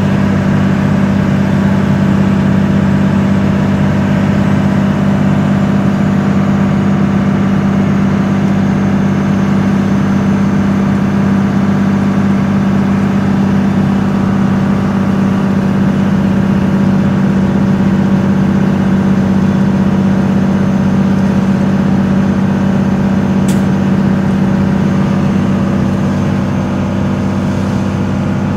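2002 Dodge Ram's 24-valve Cummins 5.9 L inline-six turbo-diesel running steadily under heavy load, heard from inside the cab as a loud, even drone while the truck hauls a dozer of about 22,000 lb. It eases off slightly near the end.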